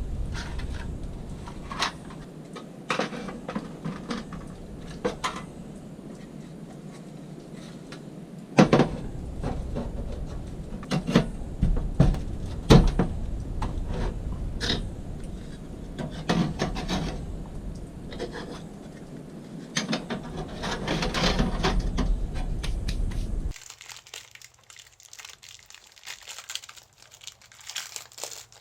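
Irregular knocks, clicks and scrapes of objects being handled, over a low steady rumble. The rumble and knocks stop abruptly about 23 seconds in, leaving only faint rustling.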